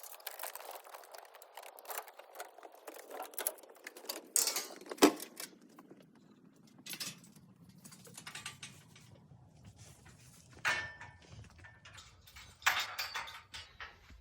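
Sheep hooves clattering and knocking on a livestock trailer's floor and ramp as the sheep are loaded: a run of irregular clicks and knocks with one loud bang about five seconds in, and a low steady rumble underneath after it.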